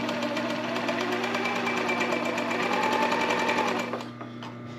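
Industrial sewing machine running a seam in liner fabric, its needle stitching at a rapid, even rate over a steady motor hum. The stitching stops about four seconds in.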